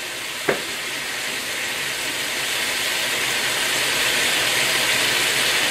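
Beef and vegetables in a soybean-paste sauce with a little stock, simmering in a wok over a gas flame: a steady sizzling hiss that slowly grows louder.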